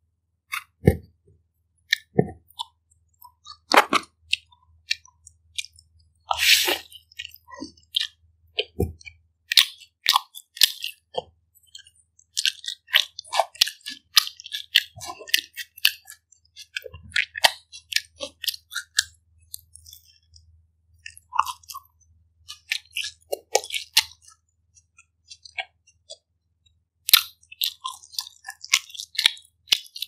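Close-miked eating of pizza: chewing and biting, with irregular crunches and crackles of the crust.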